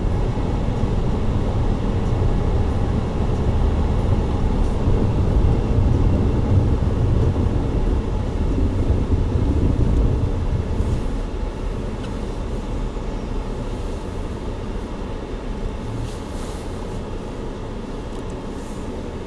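Steady drone of a car driving on the highway: engine and tyre noise heard from inside the car, a little quieter in the second half.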